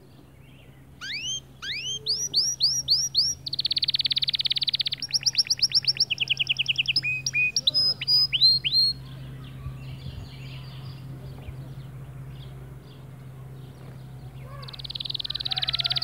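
White male canary singing: runs of quick upswept notes, then a fast trill and more rising notes, falling quieter after about nine seconds before starting another fast trill near the end.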